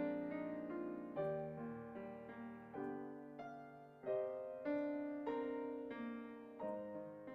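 Piano playing a slow, gentle passage of chords, each one struck and left to fade before the next.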